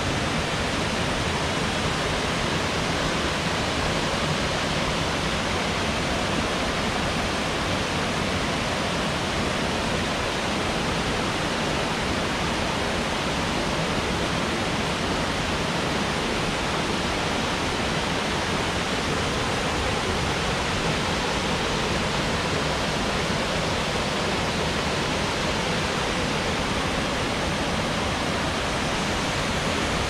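Torc Waterfall, a tall cascade falling down a stepped rock face onto boulders, giving a steady, unbroken rush of falling water.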